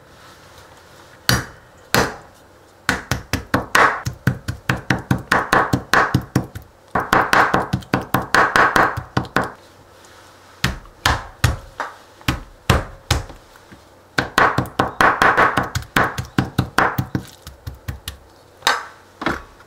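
Chef's knife chopping raw shrimp on a plastic cutting board, mincing it in quick runs of about five strokes a second with short pauses between, and a few single strikes near the start and end.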